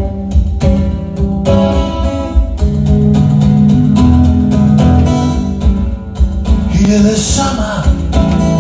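An acoustic guitar song playing a steady strummed and picked intro, with a voice starting to sing near the end.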